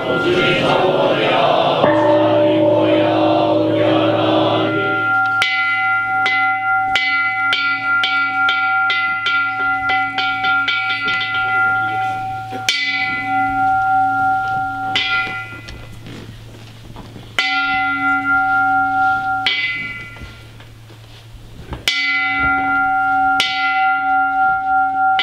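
Voices chanting for the first few seconds, then a Buddhist temple bell struck over and over: a quick run of strokes, then single strokes a few seconds apart, each ringing on with a clear, steady tone.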